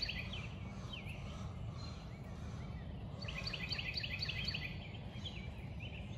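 Outdoor background noise with a steady low rumble, and a songbird singing a fast run of repeated chirps about three seconds in, with a few single chirps before and after.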